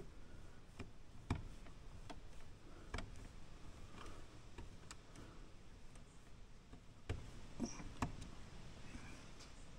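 Faint, irregular clicks and taps of small parts being handled as hands work on the driveline of a scale RC crawler's chassis.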